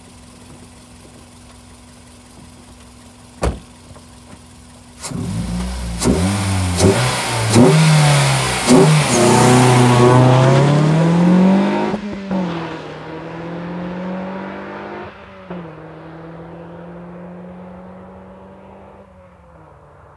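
Toyota Vitz RS hatchback exhaust: a few quick revs, then the car accelerates hard past close by. It drops pitch sharply twice as it shifts up, and the engine note fades away as it drives off.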